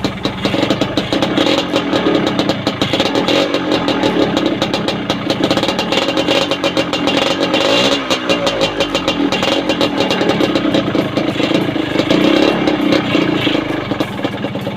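Yamaha DT125 two-stroke single-cylinder motorcycle engine running, its revs shifting briefly about halfway through. The owner calls its running unstable and blames gaps in the reed valve petals.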